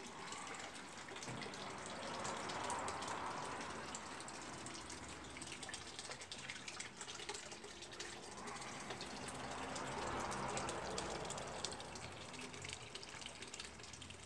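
Faint rushing hiss, like running water or wind, that swells twice, about two seconds and about ten seconds in, with scattered light clicks.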